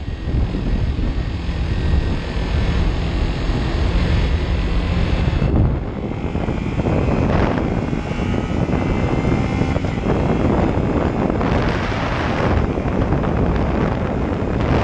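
Kawasaki Ninja 300's parallel-twin engine running at road speed, heard from a camera on the bike mixed with rushing wind over the microphone. The sound drops and changes abruptly about a third of the way in.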